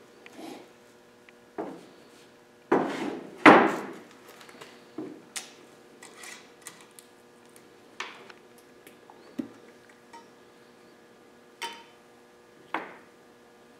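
Scattered knocks, clunks and clinks of a metal solvent can and glass mason jars being handled on a wooden table, the loudest two about three seconds in. A jar's metal screw lid is unscrewed and set down, over a faint steady hum.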